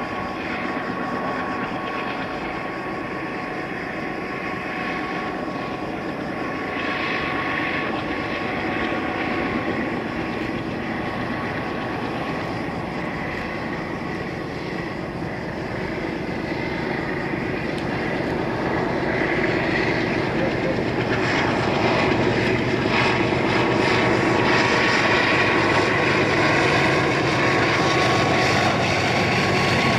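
Two MLW diesel locomotives hauling a container freight train, their engines running steadily with a high whine, growing louder about two-thirds of the way through as they draw near.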